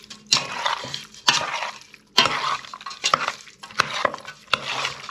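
Metal spoon stirring chunks of diced raw pike in a stainless steel pot, scraping and clinking against the pot in strokes about once a second.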